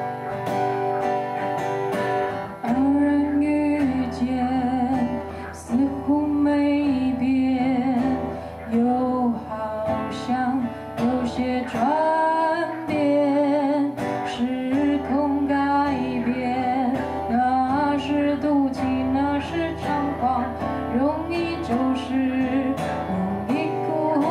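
Acoustic guitar strummed and picked, with a woman's singing voice coming in about two and a half seconds in and carrying a wavering melody over the chords.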